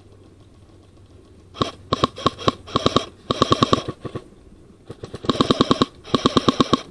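Airsoft electric gun firing in full-auto bursts, about a dozen shots a second with the gearbox whine running under them. A series of short bursts starts about a second and a half in, pauses for about a second, then two longer bursts follow.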